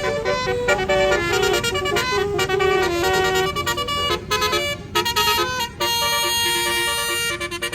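A bus's telolet basuri musical horn plays a quick run of short notes that change pitch several times a second, then holds longer notes near the end, over a bus engine running.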